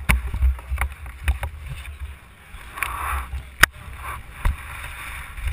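Uneven low rumble and buffeting with scattered sharp knocks and clicks, typical of wind and handling noise on a hand-carried action camera's microphone; the loudest knock comes about halfway through.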